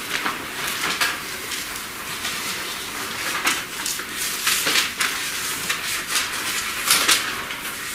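Irregular rustling and light clicks of things being handled at a lectern, several short bursts.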